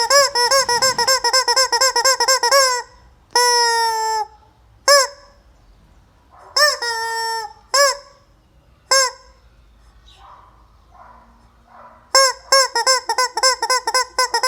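Rubber squeeze-toy chicken squawking: a fast run of short honking squeaks, then a few longer drawn-out squeals and single honks, then another fast run near the end.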